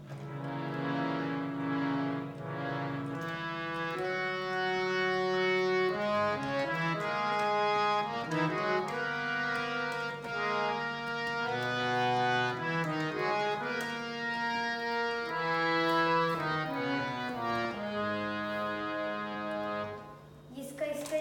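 BCM-brand harmonium played by hand: a slow melody of held reed notes over a steady low note sustained underneath, the bellows pumped by hand. The playing stops near the end.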